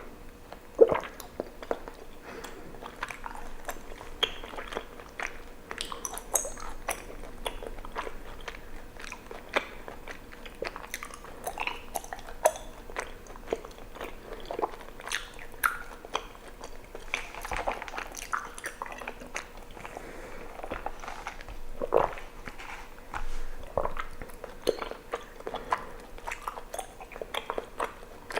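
Close-miked chewing of chewy tapioca pearls from bubble tea: irregular wet, sticky mouth clicks and smacks, with a few louder ones, one about a second in and another about three quarters of the way through.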